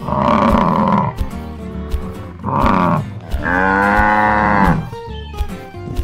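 Cows mooing three times, the last call the longest, over background music with a steady beat.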